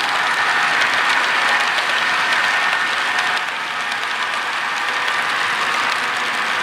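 Empty model coal hopper cars rolling past on model railroad track: a steady rush of small metal wheels on the rails with faint clicking.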